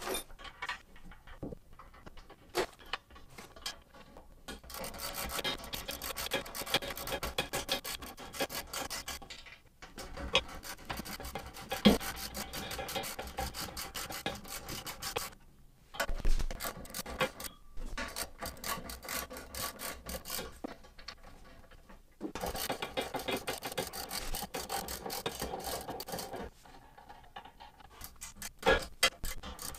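Ratchet socket wrench clicking rapidly as it runs down the bolts that fasten the drill press column to its base, in several long runs with short pauses between.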